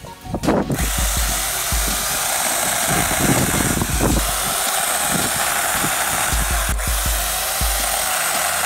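Corded electric chainsaw starting up about half a second in, then running steadily as it cuts through tree branches.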